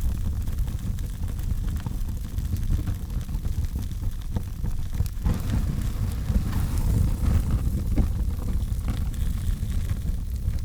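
Fire burning constantly with a steady low rumble and scattered crackles, with a hissy burst about two-thirds of the way in.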